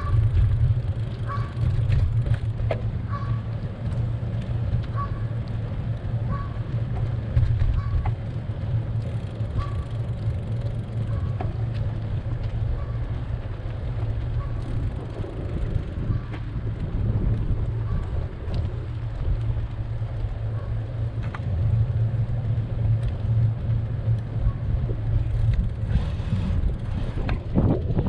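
Wind rumbling on the microphone of a moving bicycle, with light street noise. A faint short tone repeats about once a second and fades out over the first half.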